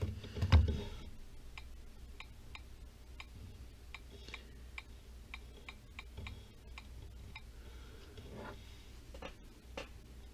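Light, irregular clicks, about two or three a second, from typing a Wi-Fi password on a 7-inch RCA Voyager II Android tablet's on-screen touch keyboard. There is a louder soft knock from handling about half a second in.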